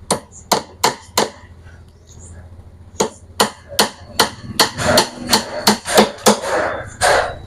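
Hammer driving nails into plywood: four strikes, a pause of about two seconds, then a run of about a dozen quicker strikes.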